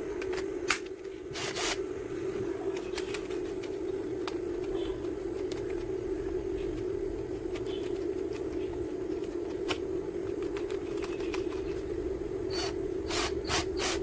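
Scattered clicks and scrapes from a cordless drill being handled while a bit is fitted into its keyless chuck, with a quick run of clicks near the end as the chuck is tightened on the bit. A steady low hum sits under it all.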